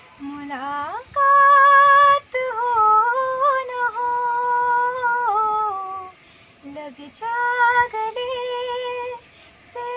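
A young woman singing solo, holding long notes and sliding smoothly up and down between them. The loudest is a high held note about a second in, and she breaks off briefly around six seconds in and again near the end.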